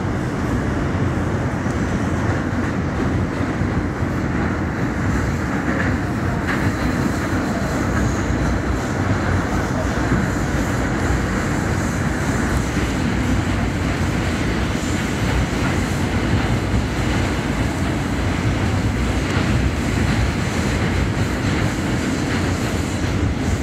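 Subway train running at speed through a tunnel, heard from inside the car: a steady rumble with the rattle and clatter of wheels on the track.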